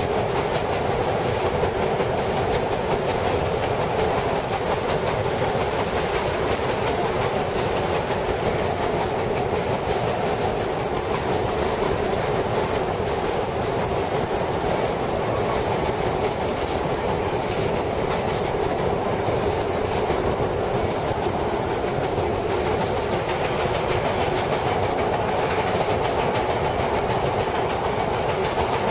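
Vintage R7A subway car running along the track, heard from inside the car: a steady, loud, unbroken noise of wheels on rail and car body.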